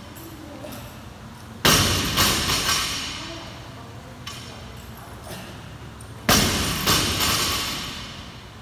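Loaded barbell dropped onto a rubber gym floor twice, about four and a half seconds apart. Each drop lands with a heavy thud, bounces once about half a second later, and the plates rattle as it settles.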